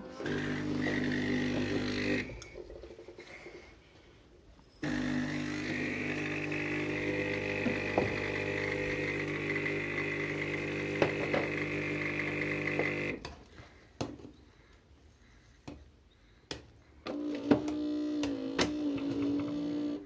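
Philips automatic coffee machine's pump buzzing as it makes a milk coffee, in three runs: a short one at the start, a longer one of about eight seconds with a hiss over it, and a short one near the end. A few light clicks and knocks fall in the pauses between runs.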